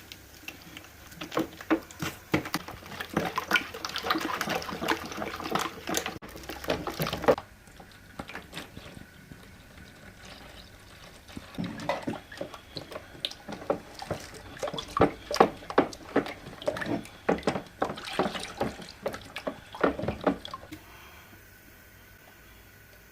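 Liquid splashing and sloshing in two bouts of irregular wet clicks, the first of about six seconds and the second of about nine, with a quiet pause between.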